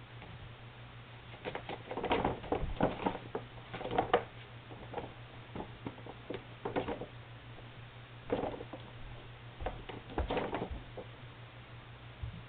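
A kitten scrabbling and pouncing inside a paper bag: irregular bursts of crinkling paper and claw scratching, in several clusters.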